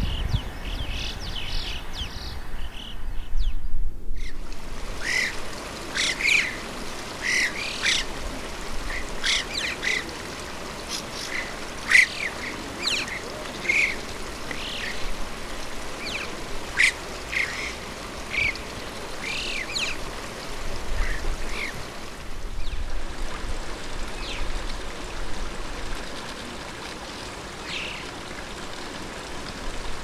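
Alpine choughs calling: many short, high chirping calls over a steady background hiss, with a brief pause about four seconds in. The calls come thickly for most of the stretch and thin out over the last several seconds.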